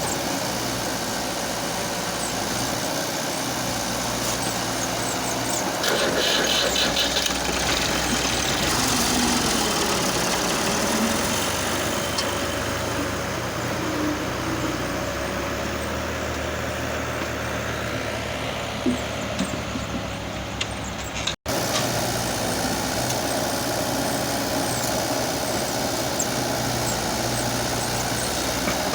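Diesel engine of heavy machinery running steadily, briefly louder about six seconds in, with a short sudden break about three-quarters of the way through.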